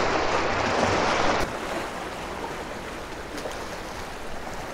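Surf washing against the jetty rocks, with wind on the microphone. About a second and a half in, the sound drops suddenly to a quieter, steady wash.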